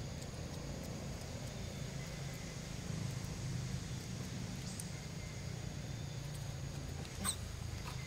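Steady low background rumble outdoors, with faint thin high tones. About seven seconds in comes one short, sharp, high-pitched squeak, the loudest moment, as a young macaque is grabbed by an adult.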